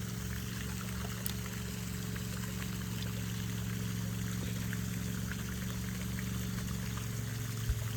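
Steady running, trickling water with a low steady hum beneath it.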